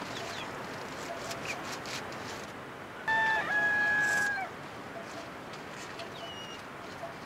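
A rooster crows once, about three seconds in: a loud, level-pitched call of about a second and a half with a brief break near its start. Around it, faint taps and rustles of nettle leaves being cut and handled.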